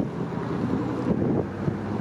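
Wind blowing across the microphone: a steady, ragged rush of noise.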